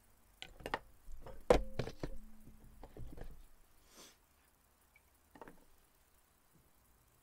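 A run of sharp wooden and metal knocks and clicks as hand carving tools are put down and picked up, a knife swapped for another blade. The knocks fall in the first half, the loudest about a second and a half in, then a short swish and a few faint knocks.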